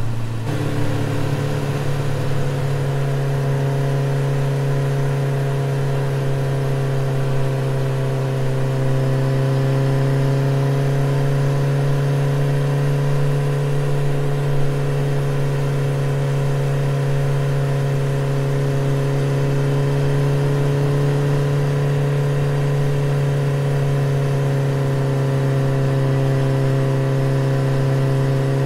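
Suzuki scooter's engine running at a nearly constant pitch while riding, a steady hum that steps up slightly just after the start.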